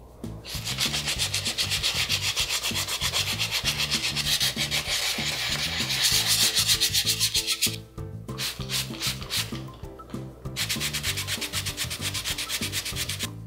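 Hand wet-sanding a carbon fibre bicycle frame with 120-grit wet/dry sandpaper: quick back-and-forth rubbing strokes, stopping briefly about halfway through and again a few seconds later.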